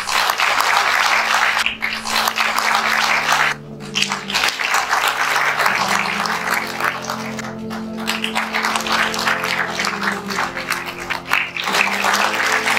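An audience applauding, a dense steady clapping, over music with long held low notes.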